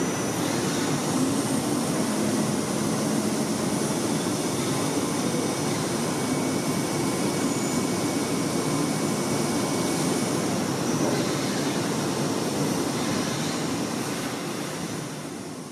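Steady machine-like rushing noise, even throughout, fading out near the end.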